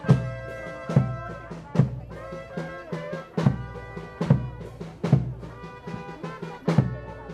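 Live brass band playing a slow march, with sustained brass chords over a bass drum struck on a steady beat a little over once a second.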